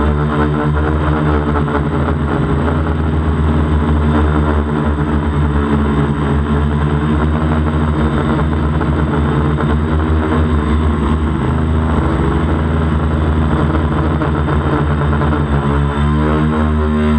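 DJI Flamewheel 450 quadcopter's brushless motors and propellers running steadily, heard loud and close from the camera on its frame. The pitch wavers near the end as the motors change speed.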